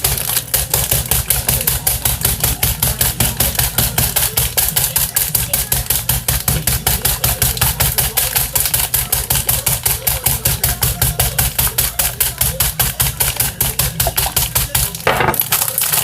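A sealed bag of Hot Cheetos being smashed with rapid, even blows, about five a second, crushing the chips inside into small pieces.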